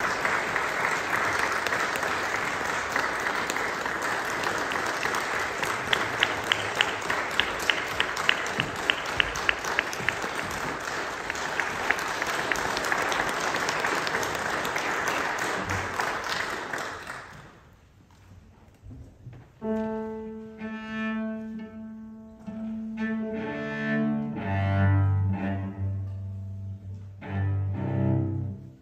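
Audience applauding, with one nearby pair of hands clapping steadily for a few seconds; the applause dies away about 17 seconds in. Then a cello tunes, bowing long notes on its open strings: first the A string alone, then lower strings sounded two at a time in fifths.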